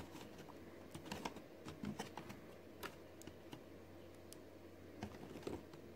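Faint, irregular little clicks and taps of plastic as an action figure and its blaster accessory are handled and fitted into the figure's hand.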